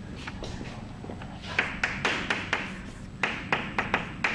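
Chalk writing on a blackboard: irregular sharp taps and short scratchy strokes, sparse at first and coming in quick clusters over the second half.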